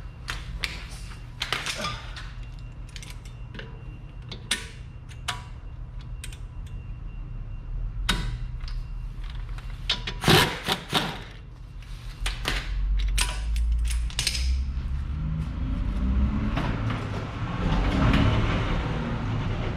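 Irregular metallic clicks and clanks of a hand wrench and metal parts working the front brake caliper bolts, over a steady low hum. A louder rumbling noise builds near the end.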